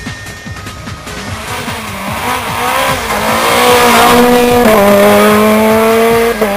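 A rally car accelerating hard past at close range, its engine note climbing, loudest around four to six seconds in, with a sharp drop in pitch nearly five seconds in before it climbs again. Electronic soundtrack music with a steady beat plays underneath, most plainly before the car arrives.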